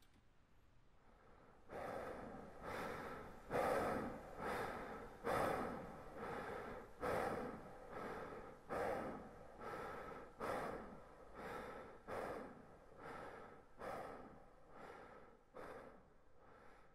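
A man breathing hard in quick, gasping breaths, a little more than one a second. The breaths start about two seconds in and weaken near the end.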